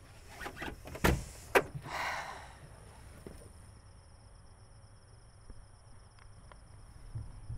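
Two sharp clicks about a second apart, then a brief rush of noise, after which crickets chirp steadily and faintly over a low hum.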